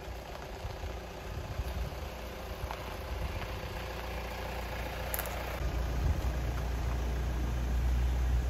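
Kia Sportage SUV driving slowly past at low speed: engine running and tyres rolling, the low rumble growing louder as the car comes close and goes by.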